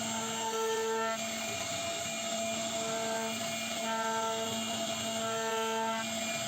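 CNC router carving wood: a steady spindle whine, with extra higher tones that come and go for half a second to a second at a time, several times.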